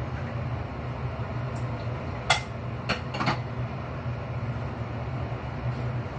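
Steady low hum of a kitchen extractor fan. Cookware clinks sharply once about two seconds in, then knocks twice more lightly about a second later.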